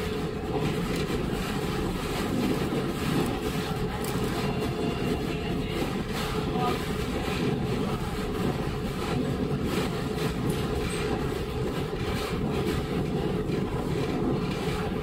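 Onboard sound of a JR KiHa 40 series diesel railcar running along the line: a steady rumble of engine and wheels on rail with a constant whine, and scattered faint clicks.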